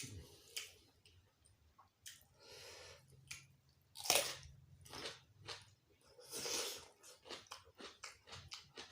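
Close-up eating sounds: a person chewing and crunching food in quick, irregular crunches, with several louder bites, the loudest about four seconds in.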